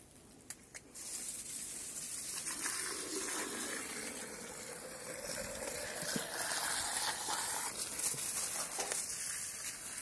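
Water from a garden hose running into a plastic container, starting about a second in; the rushing note rises in pitch as the container fills.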